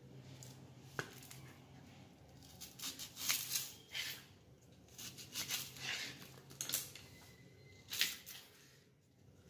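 Small knife slicing through a red onion and tapping onto a chopping board: irregular crisp cuts, coming in clusters about three seconds in and again around five to six seconds, with a single sharp one about eight seconds in.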